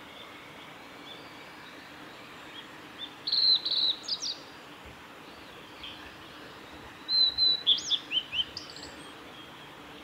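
Male blue-and-white flycatcher singing: two short song phrases of high notes that glide quickly up and down, about three seconds in and again about seven seconds in.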